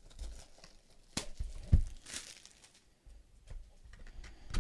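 Plastic shrink wrap crinkling as it is pulled off a cardboard trading-card box and crumpled by hand, with a few knocks from the box being handled, the loudest a thump partway through.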